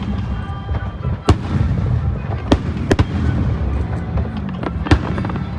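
Aerial fireworks bursting: a few sharp bangs, one about a second in, two close together in the middle and one near the end, over a continuous low rumble of further explosions.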